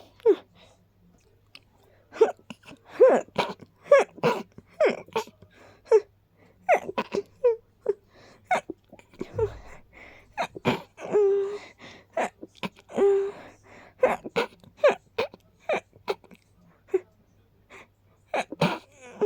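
A person sneezing over and over in small, quick sneezes, some coming in close pairs, with short pitched catches of breath in between. These are pollen-triggered sneezes, the sign of an allergic tickle in the nose.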